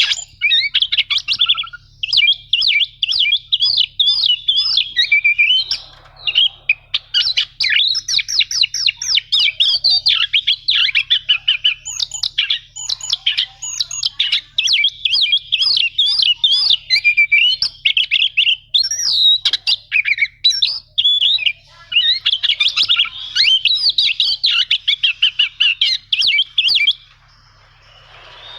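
Oriental magpie-robin (kacer) singing a fast, almost unbroken run of high, jumping chattering notes, the long excited song that keepers call ngekek. It breaks off briefly about six seconds in and again near the end.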